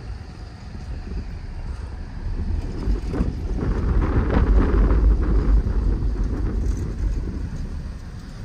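A road vehicle passing, its tyre and engine noise swelling to a peak about halfway through and then fading. Wind rumbles on the microphone throughout.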